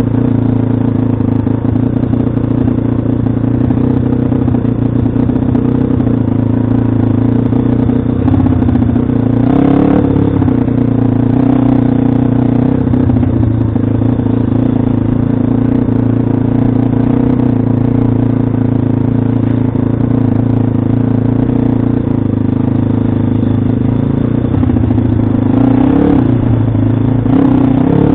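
Pit bike's single-cylinder engine running at a steady speed under way, with brief revs about ten seconds in and again near the end.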